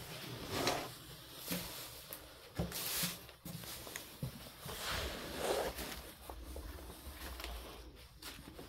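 Footsteps scuffing irregularly over a floor littered with paper debris.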